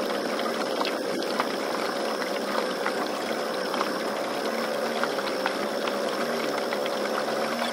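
Small boat's motor running with a steady buzz that sounds like a fly, over light splashing of water.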